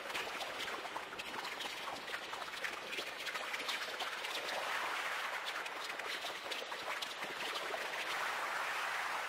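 Steady rain, a dense crackling patter of many small drop-like clicks over a hiss, growing a little louder from about halfway through.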